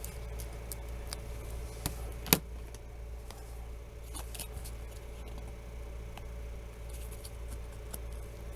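Small handling noises of parts and tools on a desk: scattered light clicks and ticks, with one sharper tap a little over two seconds in, over a steady low hum.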